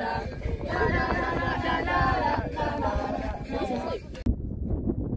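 A group of voices singing or chanting together, several people at once. It cuts off suddenly about four seconds in, leaving a low rumble.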